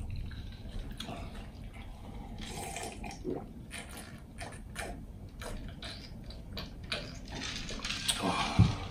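Close-miked mouth sounds of eating and drinking: wet chewing with many small clicks, and gulps of juice from a glass, with a short low thump near the end.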